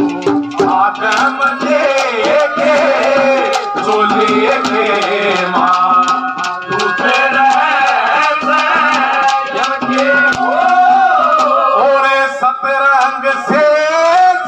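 Live Haryanvi ragni: a man singing in a high, ornamented voice over sustained accompaniment and steady hand-drum strokes.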